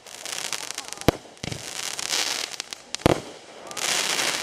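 A 200g consumer firework cake firing. Two sharp bangs come about two seconds apart, about a second in and three seconds in, with stretches of hissing, crackling effects between and after them.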